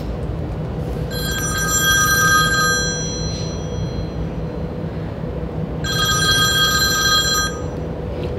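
Smartphone ringtone for an incoming call, ringing twice, each ring about two seconds long, over a steady low hum.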